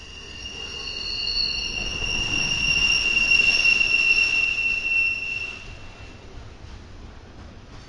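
Steel wheels of passing double-stack intermodal well cars squealing on the rail over the low rumble of the train. The high, steady squeal swells over the first few seconds, peaks, and dies away about six seconds in.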